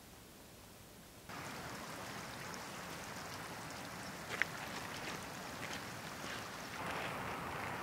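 Shallow stream trickling over stones, starting suddenly about a second in, with scattered clicks and splashes of footsteps on wet gravel and stones.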